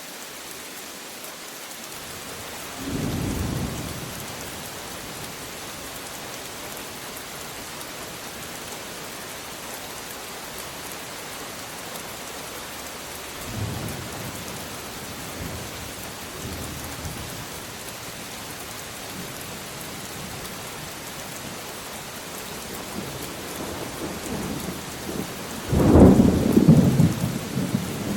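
Steady rain falling, with rolls of thunder: a short rumble a few seconds in, a fainter one about halfway through, and a loud, close rumble near the end.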